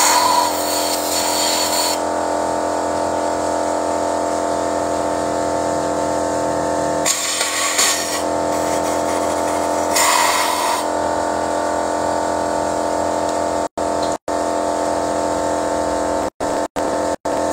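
A steady mechanical hum holding several fixed pitches, with three short bursts of hiss: at the start, about seven seconds in and about ten seconds in. The sound drops out briefly five times near the end.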